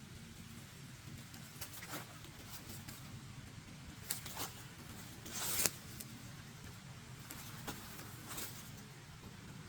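Footsteps crunching on a forest trail: a few irregular crunches and clicks, the loudest about five and a half seconds in, over a low steady outdoor rumble.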